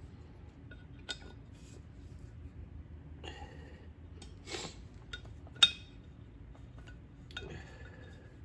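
Scattered metallic clicks and clinks of a hand tool working on an iron check valve body as its set screws are backed out, the sharpest click about five and a half seconds in.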